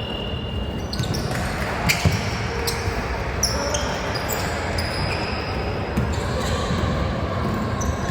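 Basketball game on a court: the ball thumping as it is dribbled and bounced, sneakers squeaking, and players calling out.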